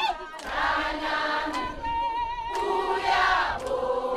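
A group of voices singing together, choir style, with no instruments showing.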